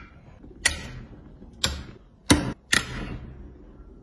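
Metal pliers clicking and snapping against a first-generation iPad's aluminium back case as leftover adhesive and parts are picked off: four sharp clicks, unevenly spaced.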